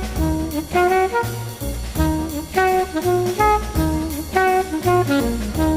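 Instrumental jazz music: a horn melody over a pulsing bass line.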